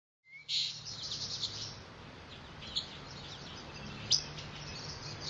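Small birds chirping and twittering in quick, irregular runs, over a low steady hum. It begins after a brief moment of silence.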